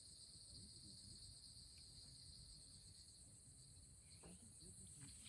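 Faint, steady chorus of insects such as crickets, a continuous high trill that runs on without a break, over a low, faint rumble.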